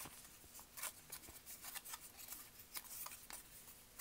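Faint rustling and crinkling of paper flower petals being handled and folded back by hand, in scattered soft clicks.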